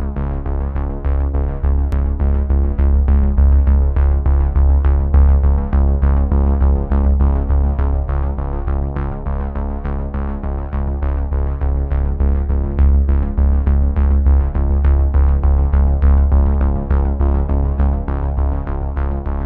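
Electronic background music: held synthesizer tones over a steady drum-machine beat.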